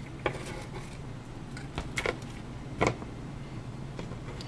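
A few short sharp clicks and clacks as the parts of a PS3 optical drive's transport are handled and set down on a workbench, over a low steady hum.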